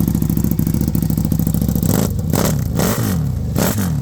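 2025 Buell Super Cruiser's V-twin idling steadily, then blipped three times in quick succession about halfway through, the pitch rising and falling with each throttle stab.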